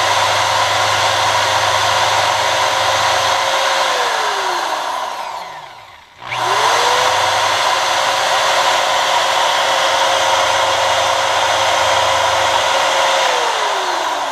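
Electric drill spinning an aluminum arrow footing while a mill bastard file rasps against it to taper the shoulder. The drill runs steadily, is switched off about four seconds in and winds down with a falling whine, restarts about six seconds in with a rising whine, then runs steadily until it is switched off and winds down near the end.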